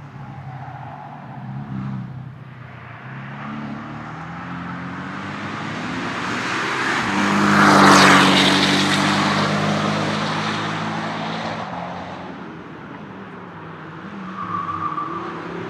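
A car passing at speed on a race track, its engine getting louder to a peak about eight seconds in and then fading away.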